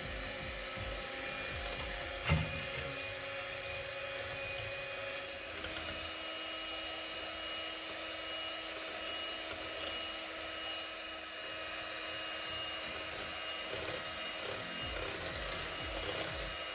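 Electric hand mixer running steadily, its beaters whipping cream in a glass bowl as it thickens toward soft peaks. A sharp knock comes about two seconds in, and the motor's tone shifts a few seconds later.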